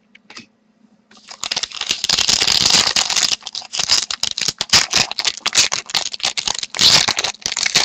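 Trading card pack wrapper (2012-13 Rookie Anthology hockey) being torn open and crinkled by hand: dense crackling that starts about a second in and goes on steadily.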